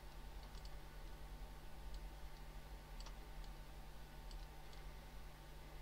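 A few faint computer mouse clicks, about six scattered irregularly, over a steady low hum.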